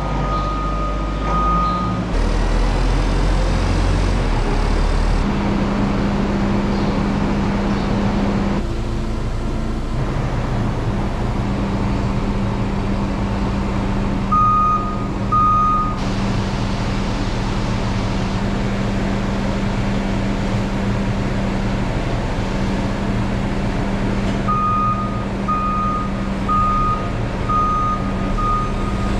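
Propane-powered Hyster forklift engine running steadily while its backup alarm beeps in spells, with a regular series of beeps near the end. The sound changes abruptly several times, as if cut together from separate stretches.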